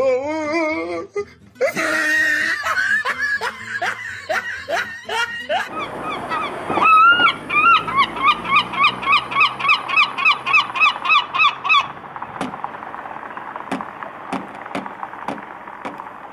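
Herring gull giving its long call: a loud run of evenly repeated yelping notes, about three a second, starting some six seconds in and stopping abruptly about six seconds later. Afterwards there are a few sharp clicks.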